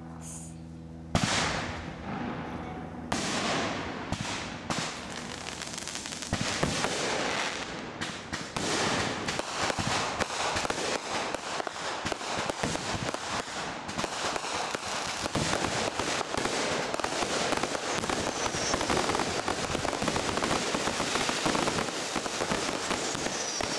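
Aerial fireworks going off in a rapid barrage: a first loud bang about a second in, then from about three seconds on a continuous run of overlapping bangs and crackling stars with no let-up.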